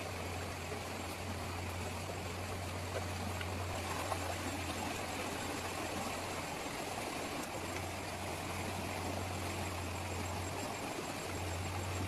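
A shallow river running over rocks: a steady rush of water, with a low rumble underneath.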